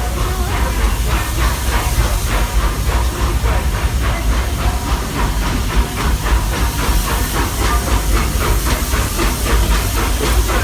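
Steam locomotive Roy O. Disney working steam at a steady pace, its exhaust chuffing evenly about four times a second over the low rumble of the moving train.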